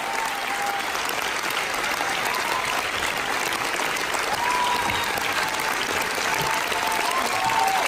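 Theatre audience applauding steadily, with a few voices cheering over the clapping.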